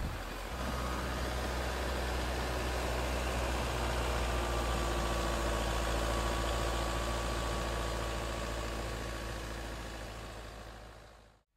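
Toyota Land Cruiser Prado 150's engine running steadily at low revs: a low, even hum with a faint high whine above it. It fades near the end and then cuts off.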